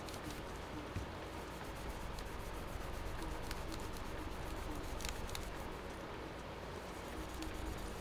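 A paper wipe rubbing and scrubbing across an HP Chromebook 14a's palm rest and touchpad, cleaning off grime, with a few faint ticks about five seconds in.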